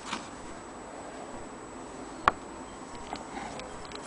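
Handling noise: one sharp click about two seconds in, then a few faint ticks, over a steady low hiss.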